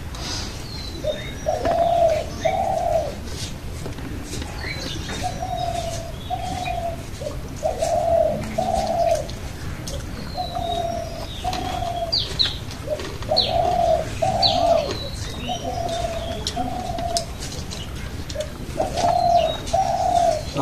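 A dove cooing over and over, each phrase two low notes, repeated every two to three seconds, with small birds chirping in short high notes.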